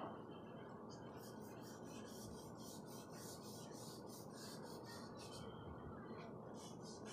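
Charcoal stick scratching across drawing paper in quick, faint strokes, about four or five a second, starting about a second in with a short pause near the end.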